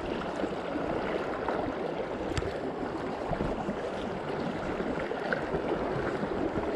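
Fast river current rushing and babbling close to the microphone, steady throughout, with one light click a little over two seconds in.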